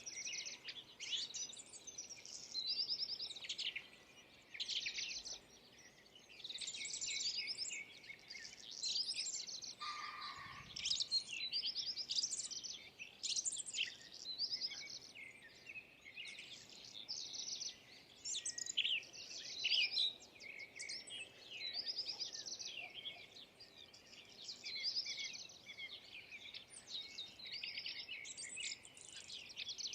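A chorus of small birds chirping and twittering, many quick high calls and trills overlapping without a break.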